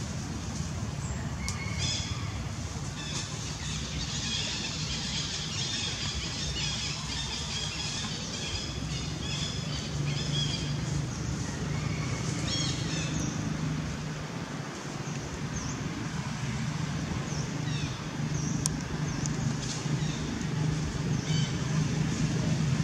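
Outdoor ambience: a steady low motor-like drone with clusters of short, high chirping calls over it, most in the first several seconds and again about halfway through.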